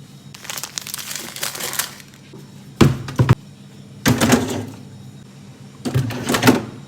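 Plastic crinkling for a couple of seconds, then a few knocks and clunks of containers and items being handled and set down while a fridge is cleaned and organised.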